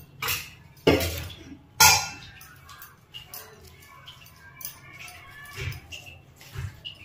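Stainless steel utensils clinking against steel dishes: three sharp, ringing strikes in the first two seconds. After that come only faint sounds of a hand mixing chana saag into rice on a steel plate.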